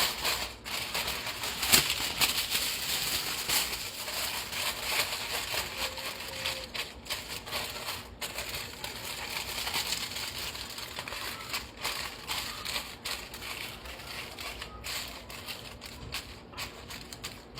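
Aluminium foil crinkling and crackling as it is pressed and folded over the rim of a cooking pot, with many small irregular crackles.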